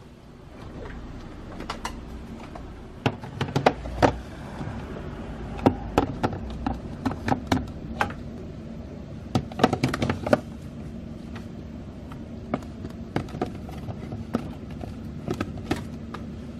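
Irregular knocks and clinks of objects being handled, in clusters, over a steady low hum.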